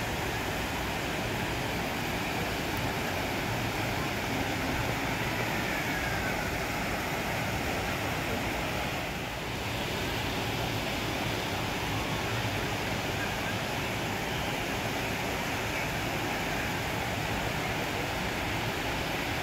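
River water rushing steadily over rocks and a small cascade, with a brief dip in level about halfway through.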